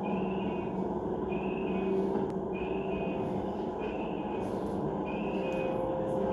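Airport crash tender's engine and road noise from inside its cab as it drives, played back through a TV's speaker. Over it, a short high beep repeats about every second and a quarter.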